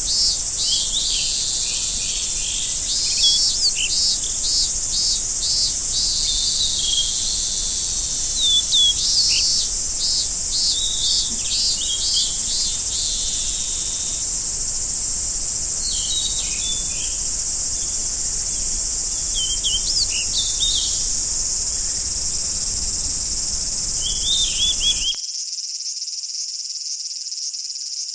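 A steady high-pitched chorus of insects trilling, with short bird chirps over it in bunches. About 25 s in the soundscape changes abruptly, like a cut to another recording: the low background rumble drops out and only a quieter insect drone remains.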